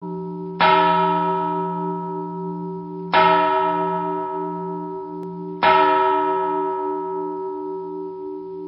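A large bell tolling three times, about two and a half seconds apart, each stroke ringing on and slowly dying away with a pulsing hum.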